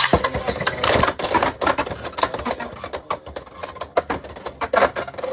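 Two Beyblade X spinning tops launched with a ripcord into a clear plastic stadium, then spinning and colliding, with a rapid run of sharp clattering clicks and knocks as they hit each other and the stadium walls.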